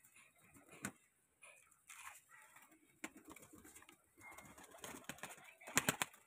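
Domestic pigeons cooing faintly in a loft pen, with scattered sharp knocks and wing flaps, the loudest a quick cluster of claps near the end.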